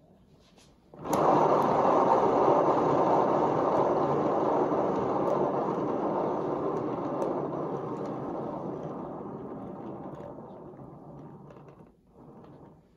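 HomeRight paint turntable (lazy Susan) spun hard by hand with a wet canvas on it, its bearing giving a steady rolling rumble that starts suddenly about a second in. The rumble slowly fades as the turntable coasts down and stops near the end, with a brief short noise as it comes to rest.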